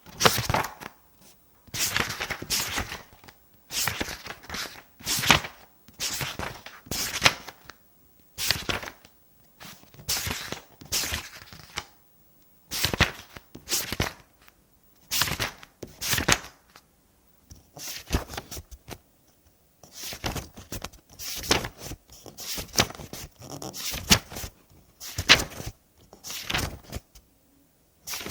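Pages of a book being turned one after another, each a short papery rustle and flap, about one every one to two seconds.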